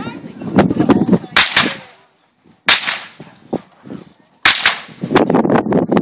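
Blank gunshots, the gunfire test of a dog temperament test: a series of sharp, loud cracks spread unevenly over the first five seconds, followed by a dense crackling noise from about five seconds in.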